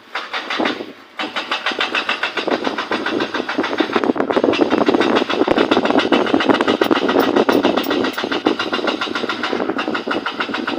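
Road roller engine running with a fast, even pulse, after a short burst and a brief break about a second in.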